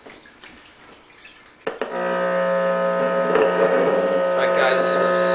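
An electric guitar chord played through a small Fender pocket amp: after a click about a second and a half in, a loud chord starts and rings on steadily without fading.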